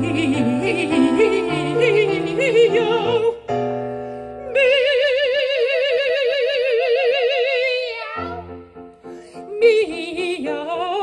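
Two women singing an operatic duet with digital piano accompaniment: short phrases, a brief piano passage, then one long held note with wide vibrato for about three seconds, and after a few piano notes the singing resumes near the end.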